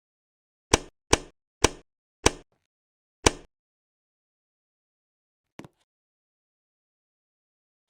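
Wobbly ceiling fan knocking: five sharp, loud clunks coming slower each time, then one faint knock a couple of seconds later.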